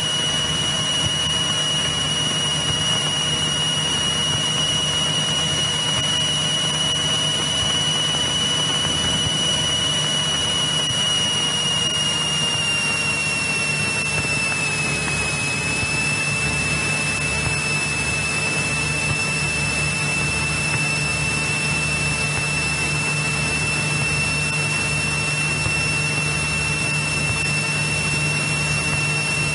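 1964 Cessna 172E Skyhawk's engine and propeller running steadily at climb power, heard in the cabin as a constant drone. A steady high whine sits over it and drops slightly in pitch about halfway through.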